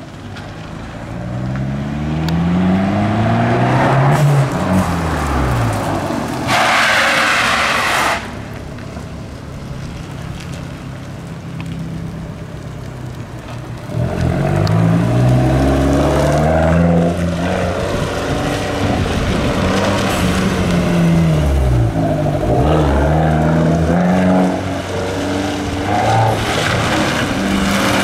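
Fiat 500 Abarth's turbocharged 1.4-litre four-cylinder running through a tuned exhaust, accelerating hard through the gears several times: the engine note climbs, drops back at each shift and climbs again, and falls off steeply twice as the revs come down. About seven seconds in there is a loud hissing rush lasting about a second and a half.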